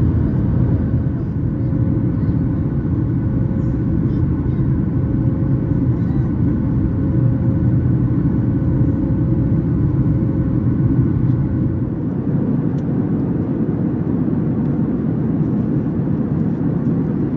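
Steady cabin noise inside a Boeing 737 MAX 8 airliner: a deep, even rumble of engines and airflow, with a faint steady hum that fades out about two-thirds of the way through.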